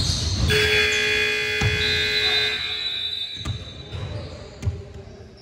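Gym scoreboard buzzer sounding one steady, harsh tone for about two seconds, starting about half a second in, followed by a few basketball bounces on the court.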